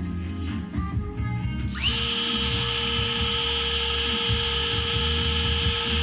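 Small brushless quadcopter motors spinning up sharply about two seconds in, then holding a steady high whine before starting to wind down at the end.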